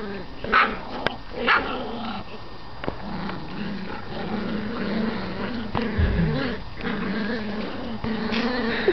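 Rat terrier puppies play-growling steadily over a tug-of-war toy, with a couple of short high yips in the first two seconds. A low thump comes about six seconds in.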